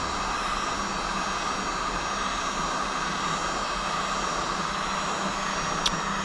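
Heat gun blowing steadily, heating a two-stroke crankcase around the main bearing so it expands to take a frozen crankshaft; a brief tick sounds near the end.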